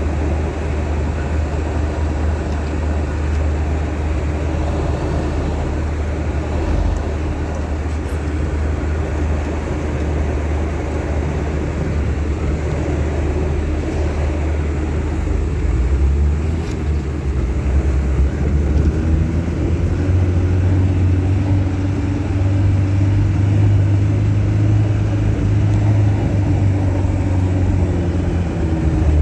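An engine running steadily, with a deep hum that shifts in pitch a little about halfway through.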